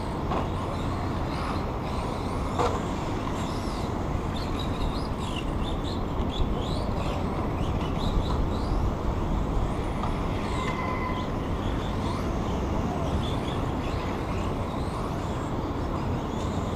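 Steady outdoor background rumble, like distant traffic, with short high chirps and squeaks that slide up or down scattered through it.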